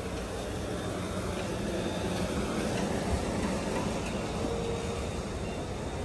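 A car running, a steady low rumble with no breaks.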